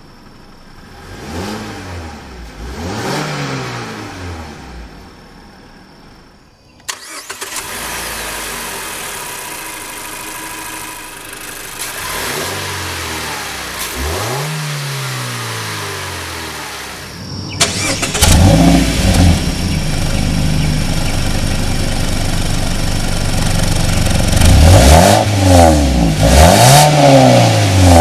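2012 Mazda3 Skyactiv's 2.0-litre four-cylinder engine idling and being revved in short blips, each rising then falling, a couple at a time. It is heard first from inside the cabin, then at the open engine bay after about seven seconds. After about eighteen seconds it is heard at the tailpipe, where the exhaust note is loudest.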